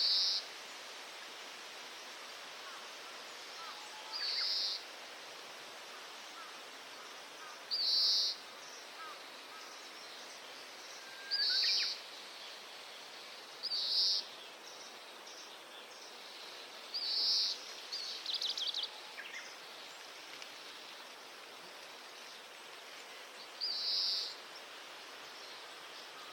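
Oriental greenfinch singing: short high phrases repeated every three to four seconds, with a quick run of rapid notes about two-thirds of the way in, over a steady background hiss.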